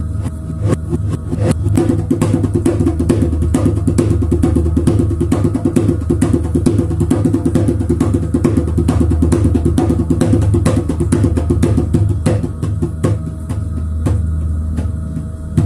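Hand drum struck by hand. The strokes quicken into a fast, rolling rhythm through the middle and thin out near the end, over a steady low hum.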